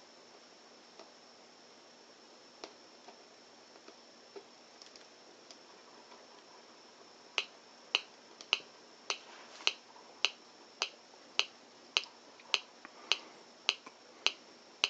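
Forrest Mims audible light probe, a two-transistor NPN–PNP oscillator driving a small speaker, giving slow, evenly spaced clicks of nearly two a second, starting about seven seconds in after a few faint ticks. With a 1 megohm resistor in place of the photoresistor and a 1 microfarad timing capacitor, the capacitor charges slowly, so the circuit clicks instead of sounding a high tone.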